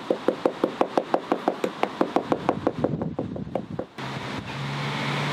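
Hammer tapping rapidly and evenly on the formwork, about five taps a second and growing fainter, to settle the fresh mortar and drive out air bubbles. The taps stop about four seconds in, giving way to wind buffeting the microphone.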